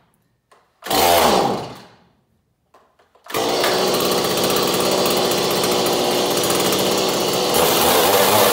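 Stihl two-stroke chainsaw being pull-started. There is one pull of the starter cord about a second in, then the engine catches a little after three seconds and runs steadily, its tone shifting slightly near the end. It fires on the next pull after the lever is flipped up one notch from the bottom choke setting, once the first pop has been heard.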